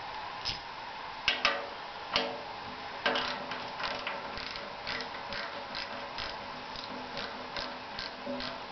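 Small hand ratchet clicking in short back-and-forth strokes, about two clicks a second, as the hose clamp on the dust-collector hood is loosened.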